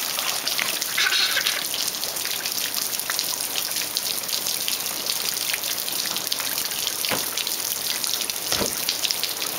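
Water spraying from the inflatable whale's spout and pattering steadily onto the pool water: an even hiss of falling droplets. Two soft thumps come near the end.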